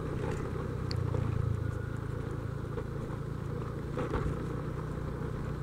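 Motorcycle riding along: a steady low rumble of engine and road noise, a little louder about a second in, with a few faint clicks.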